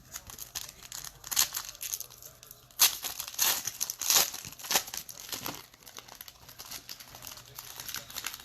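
A trading card pack's wrapper being torn open and crinkled by hand, in irregular bursts that are loudest in the first half and thin out toward the end.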